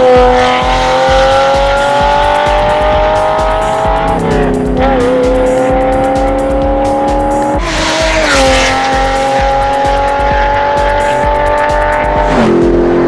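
High-revving sports car engine accelerating hard through the gears: its pitch climbs steadily, then drops sharply at each upshift, about four, eight and twelve seconds in. Background music with a steady beat plays underneath.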